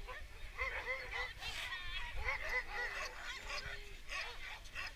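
Sled dogs in harness whining and yipping, many short rising and falling calls overlapping one another.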